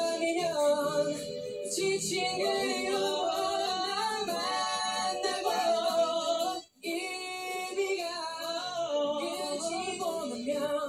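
Singing with music, sustained notes sliding up and down; the sound cuts out for a split second about two-thirds of the way through.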